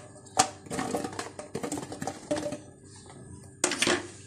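Whole strawberries dropped by hand into a plastic blender jar: a series of irregular soft knocks and thuds against the plastic, with a louder clatter near the end.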